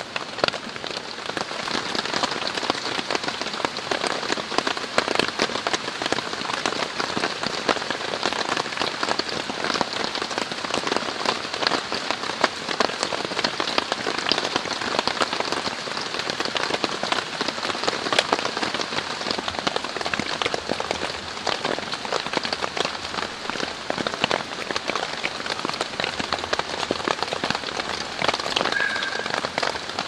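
Heavy monsoon rain pattering on tent fabric, heard from inside the tent: a dense, even patter of countless drops that keeps up without a break.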